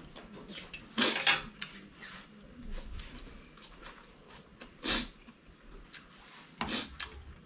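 Fork and spoon clinking and scraping on plates during eating, with a few short, sharp sounds about a second in, around five seconds in, and shortly before the end.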